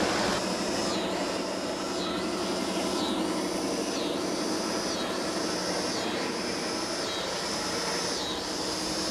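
G-scale model trains running on the garden track: a steady hum under a high whirring hiss that dips briefly about once a second.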